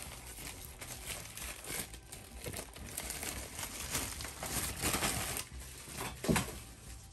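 Crinkling and rustling of things being handled and rummaged through by hand, with one louder short sound about six seconds in.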